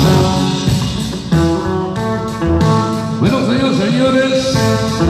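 Loud dance music played over a sonidero DJ's sound system, a song running with no announcing over it.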